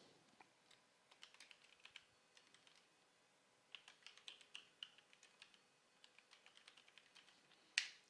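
Faint typing on a computer keyboard: scattered key clicks in short runs, with one louder click near the end.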